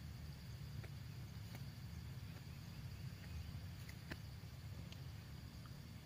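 Crickets chirring in a steady high drone, over a low rumble and a few faint clicks.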